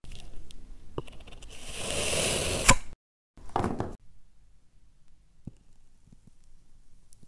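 Grainy hissing and crumbling of moldable play sand being worked. It swells to its loudest and ends in a sharp click just under three seconds in, and a short burst of the same comes after a brief break. Then only faint light taps follow as a metal scoop meets the sand.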